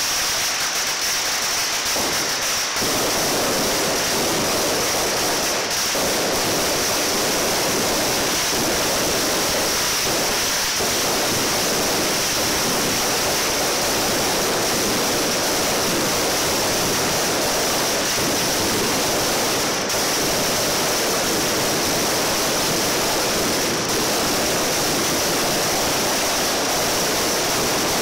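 Strings of firecrackers in a hand-lit mascletà going off in a dense, unbroken rattle of bangs that merges into a loud, steady noise.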